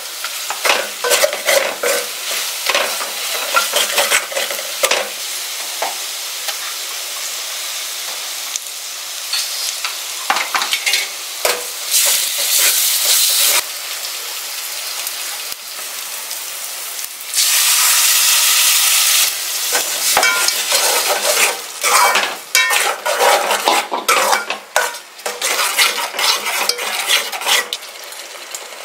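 Onion and spice masala frying in an aluminium pot, sizzling while a metal slotted spatula scrapes and clinks against the pot in quick uneven strokes. Twice in the middle the sizzle swells into a louder, steady hiss for a second or two.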